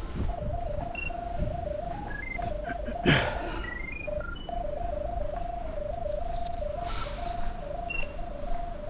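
Electronic tone from a drain-camera locator receiver as it picks up the camera's sonde, warbling back and forth between two close pitches, with a few short higher beeps and a brief knock about three seconds in.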